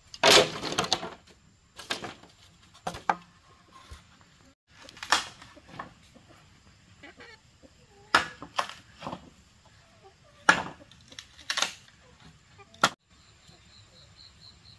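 A series of irregular sharp knocks, about one every second or so, the loudest just after the start, with chickens clucking now and then.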